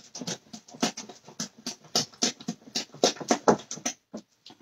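Wire whisk beating thick waffle batter in a glass bowl: quick rhythmic strokes, about five a second, that slow and stop near the end.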